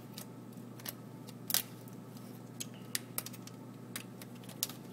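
Scattered light clicks and taps of small plastic and metal parts being handled, a few of them sharper, over a steady low hum.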